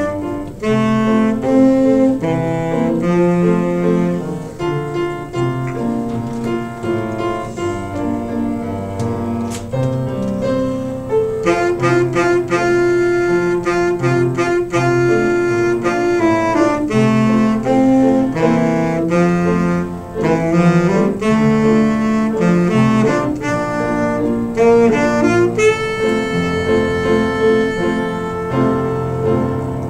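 Tenor saxophone playing a solo melody with upright piano accompaniment. The line moves between runs of shorter notes and long held ones, and ends on a long sustained note.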